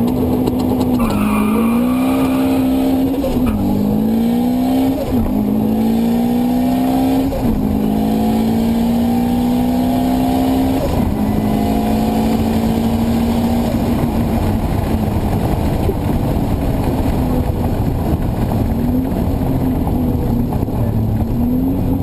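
Race car engine heard from inside the cabin, accelerating hard through the gears: its pitch climbs and drops at each of several shifts in the first half, then holds fairly level with small rises and dips, over steady road and wind noise.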